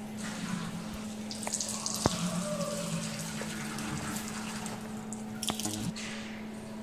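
TIG (argon) welding on a stainless-steel frame: a steady hiss from the arc, swelling about a second in and easing off in the middle, over a constant low hum. One sharp click about two seconds in.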